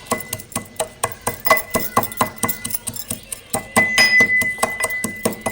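Pestle pounding garlic cloves and cumin seeds coarsely in a mortar: quick repeated strikes, several a second, each with a clinking ring that gets louder about four seconds in.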